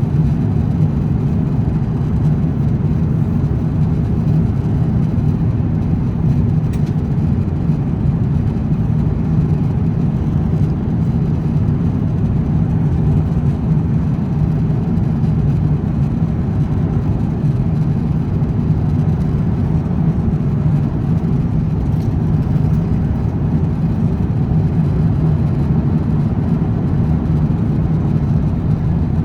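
Steady in-flight cabin noise of an Airbus A350-900 airliner: an even, deep rush of airflow and engine noise.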